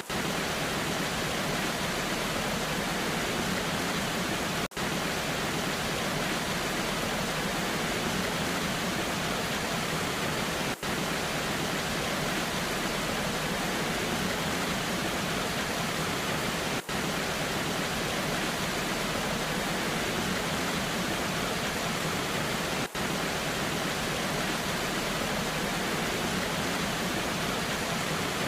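Waterfall rushing in a steady, even roar of water, with a very brief dip in level about every six seconds.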